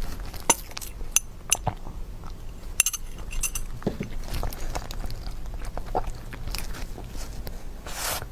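Close-miked eating of chocolate dessert: several sharp clinks of a utensil against a dish, some with a brief ring, in the first few seconds, then biting and chewing sounds.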